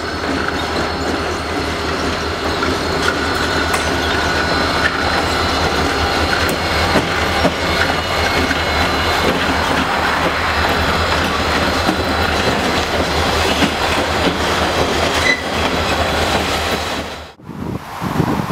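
Freight train cars rolling past close by: a steady rumble of steel wheels on rail, with clicking over the rail joints and a faint high squeal from the wheels. Near the end it cuts off abruptly, giving way to wind on the microphone.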